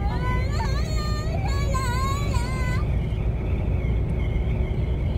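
Steady low rumble of a truck running, heard inside its cab. Over it, for about the first three seconds, a young girl's high sing-song voice rises and falls, then stops.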